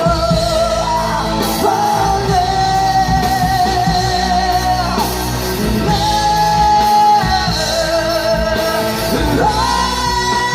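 Live band playing a song with a singer holding long, wavering notes over amplified band backing with heavy bass.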